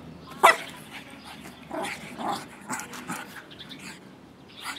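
Petit Brabançon dog making sounds in excited play: one sharp bark about half a second in, then several softer short sounds.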